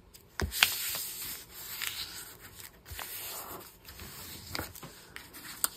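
Hands rubbing and smoothing a small stack of folded paper sheets to crease the fold: a dry papery rub and rustle, with a sharp tap about half a second in.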